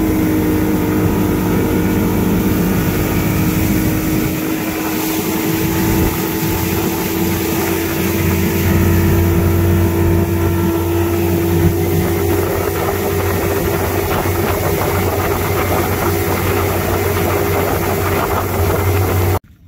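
Outboard motor running steadily under way, driving a small boat, with the wash of water along the hull. The sound cuts off abruptly near the end.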